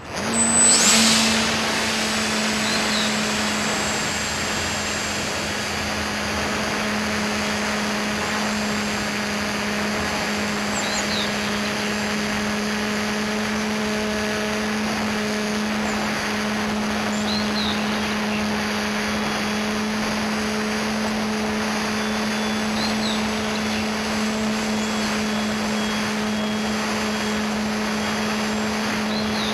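Electric motor and propeller of a lightweight homemade radio-controlled airplane running in flight. After a short rush at the launch it holds one steady pitch throughout, over a constant rush of air.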